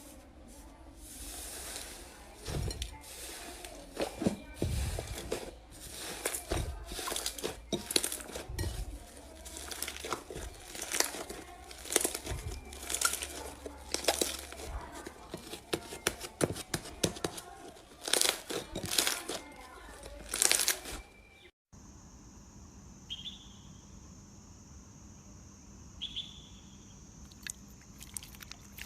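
Slime being squeezed and pressed by hand, with dense, irregular crackling and crunching. About three-quarters of the way through it cuts off suddenly, leaving a quieter steady hiss with a few faint short chirps.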